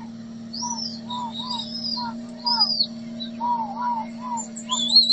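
Birds calling: a short arched chirp repeated two or three times a second, with higher warbled phrases, over a steady low hum.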